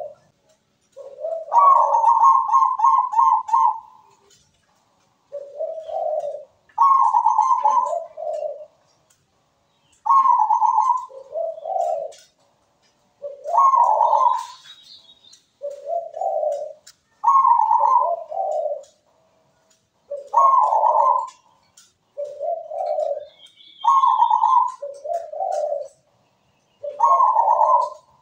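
Zebra dove (perkutut) cooing its song over and over: each phrase mixes low coos with a higher, rapid rolling trill, and comes back about every three seconds.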